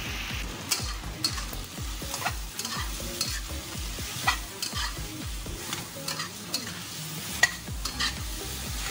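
Chicken feet stir-frying in a wok: a spatula scrapes and knocks against the pan over a steady sizzle, with many short clicks and one sharper knock near the end.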